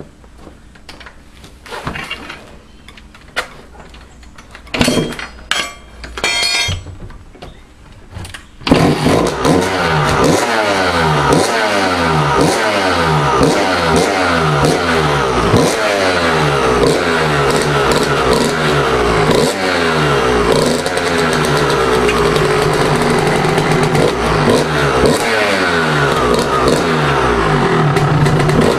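2001 Kawasaki KX125 two-stroke single, fitted with an FMF Gold Series Fatty expansion chamber and Pro Circuit silencer, getting a few short attempts before it fires up about nine seconds in, then revved up and down over and over. This is its first start after a fresh rebuild with a new Wiseco piston in a freshly honed cylinder.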